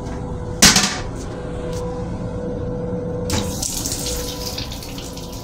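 A plastic toilet lid claps shut about half a second in. About three seconds in, the railcar restroom sink tap starts running, water splashing steadily into the basin, over a steady background hum.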